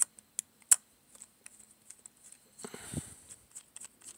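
Small sharp metal clicks and ticks from a hex driver working the centre screw of an aluminium RC servo saver, with a short scraping rattle about two and a half seconds in.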